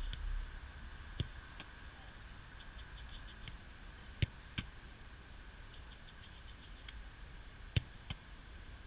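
A football kicked three times at close range, each kick a sharp thump followed about a third of a second later by a softer smack as the goalkeeper catches it in gloved hands.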